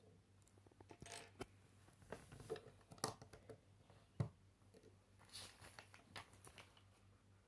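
Faint clicks and rattles of small plastic LEGO bricks being handled and pressed onto a build, with one sharper knock about four seconds in. Near the end comes the rustle of paper instruction-booklet pages being turned.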